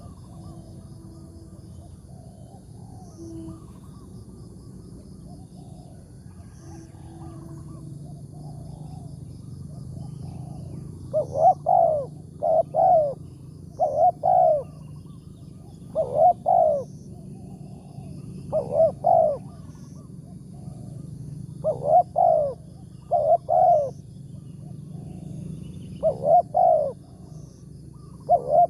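Spotted dove cooing: a loud, low phrase of two or three coos, repeated about every couple of seconds, starting about eleven seconds in.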